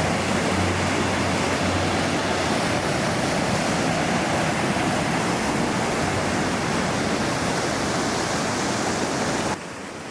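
Steady rushing of water, Lake Superior waves washing on the shore, cutting off abruptly near the end.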